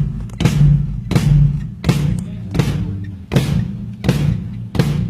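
A drum kit played in a slow, steady beat, with a hard hit about every three-quarters of a second, each leaving a low ringing drum tone under it.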